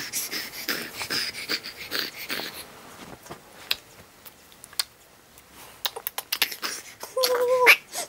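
Rustling of a baby's clothes and bedding, with many small clicks and soft breathy sounds, as an infant is undressed. Near the end the infant starts to cry, one steady high wail.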